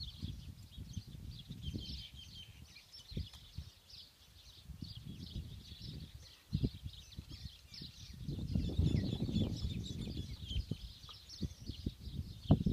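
Many small birds chirping and twittering continuously, over low gusts of wind buffeting the microphone, with a longer gust about two-thirds of the way through and a few sharp clicks.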